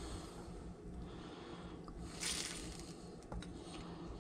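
Metal slotted spoon working through sauce in a glass baking dish to lift out a baked fish fillet: faint wet squishing and scraping, with a short louder squish about two seconds in and a few light clicks after it.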